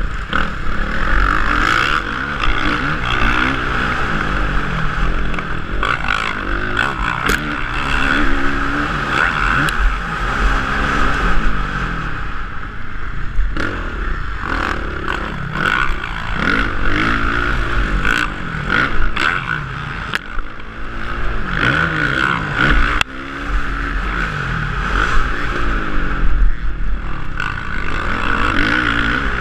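Motocross bike engine racing, heard through a helmet-mounted camera: the revs rise and fall over and over as the throttle is opened and closed through turns and jumps, over a steady rush of wind noise and some rattling from the bike over rough ground.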